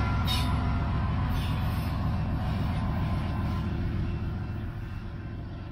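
Union Pacific diesel locomotive and its train of empty aggregate cars running past and pulling away, the low engine drone and wheel noise fading steadily as the train recedes.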